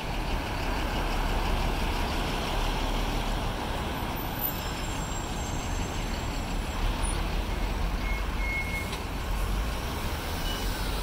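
Steady city street noise: an even rumble of road traffic.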